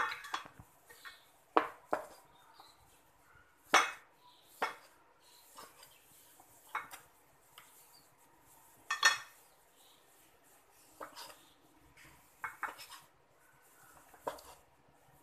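Cleaver knocking on a plastic cutting board while cutting boiled chicken breast into small pieces: single sharp knocks at an irregular pace with pauses between, the loudest about four and nine seconds in.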